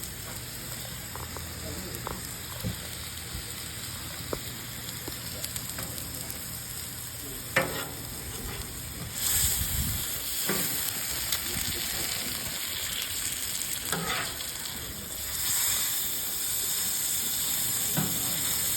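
Steak sizzling as it fries: a steady hiss that grows louder about nine seconds in and again a few seconds later. A few short knocks break through, the sharpest about eight seconds in.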